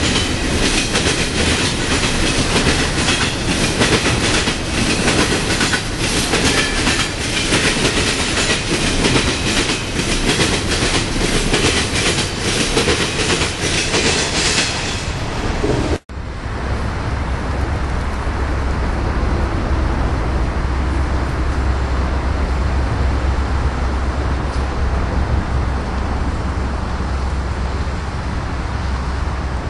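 BNSF intermodal train passing at speed: a steady clatter of wheels over the rail joints that thins out as the last car goes by. After a sudden cut, a low steady rumble.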